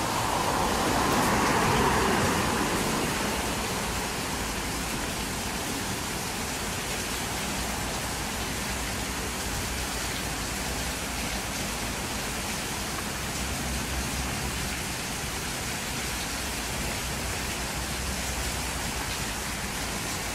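Water pouring and splashing down the ledges of a stepped cascade fountain: a steady, even rush, a little louder in the first couple of seconds.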